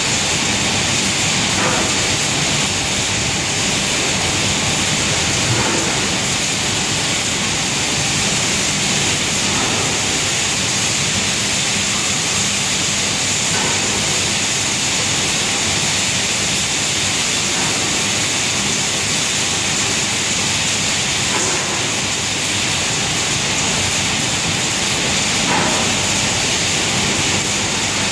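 Steady, loud rushing noise of an industrial dust extraction system's fans and air moving through the ducting, with a faint low hum underneath.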